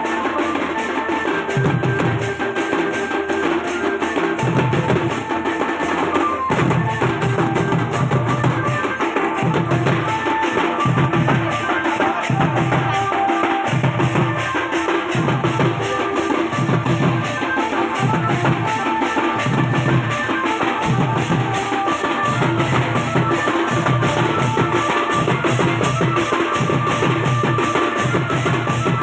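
Dance music with a steady, heavy drum beat about once a second and a melody over it.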